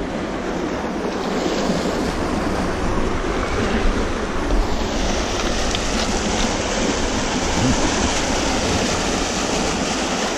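Steady rush of fast-flowing river rapids, with wind rumbling on the microphone; the hiss of the water gets brighter about halfway through.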